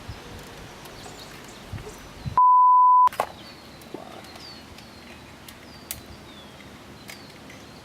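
A censor bleep: one steady, pure beep of about two-thirds of a second, dubbed in over the sound about two and a half seconds in. Around it, faint outdoor background with a sharp click right after the bleep.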